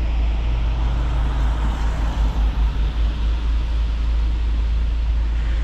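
Car driving on a rain-wet road: steady tyre and road noise over a heavy low rumble, which wavers briefly near the middle.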